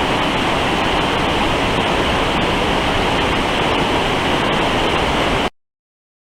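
Rushing river water, a loud steady roar that starts and cuts off abruptly.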